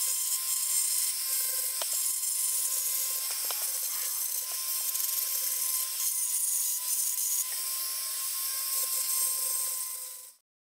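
High-speed rotary tool with a small grinding stone deburring sharp filed edges on an aluminium Minarelli two-stroke crankcase: a steady motor whine over a grinding hiss, with a few light ticks. It fades out near the end.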